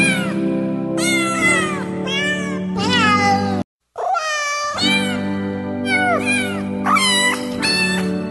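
Cat meowing again and again, with many rising-and-falling calls about a second apart, over steady background music. The sound cuts out briefly just before four seconds in.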